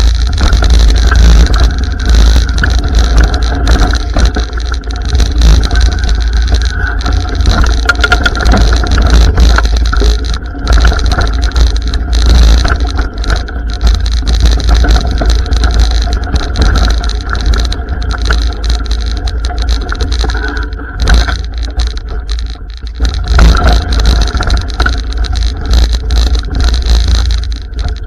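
A BMX ride over a bumpy dirt track, heard from a camera on the bike: wind rushing over the microphone, tyres rumbling on the dirt, and frequent knocks and rattles as the bike hits the bumps.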